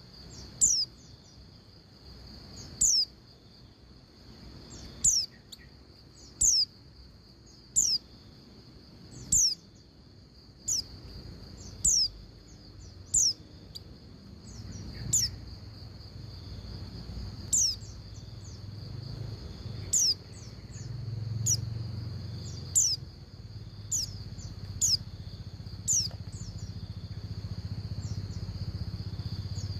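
Female pleci (white-eye) calling a male: a series of sharp, high chips, each sliding steeply down in pitch, repeated about every one to two seconds over a faint steady high-pitched hum.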